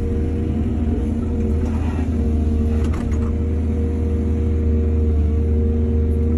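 Excavator's diesel engine running steadily under load, with a brief clatter about two to three seconds in.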